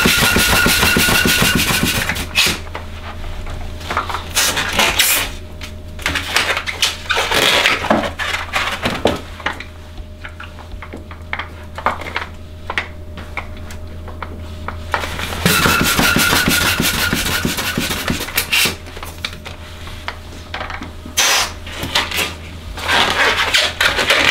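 Hand pump pushing air into long 260 twisting balloons: a rush of air with a faint, slightly rising whistle, once at the start and again about two-thirds of the way through. In between, rubbing and small squeaks of the latex balloons being handled, over a steady low hum.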